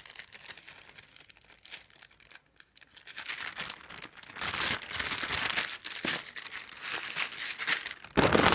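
Small clear plastic zip bag of wires and parts crinkling as it is handled, in irregular rustles that get busier from about three seconds in, with the loudest crinkle near the end.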